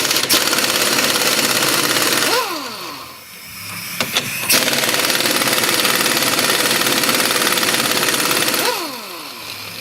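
Impact wrench hammering on the 21 mm lower strut bolts to loosen them. It makes two long runs, about two seconds and then about four seconds, and each ends in a falling whine as the tool spins down. A couple of clicks come between the runs.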